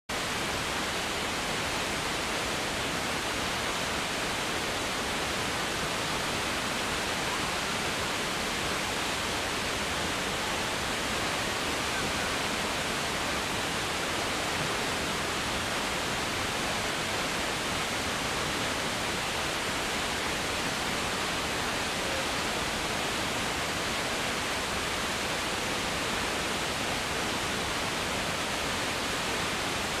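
Choshi Otaki, a wide waterfall on the Oirase Stream, pouring over its rock ledge into the pool below: a steady, unchanging rush of falling water.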